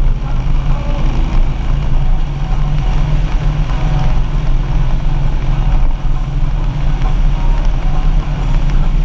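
Harley-Davidson Street Glide's V-twin engine running steadily while riding, with wind and road noise, heard from behind the windshield.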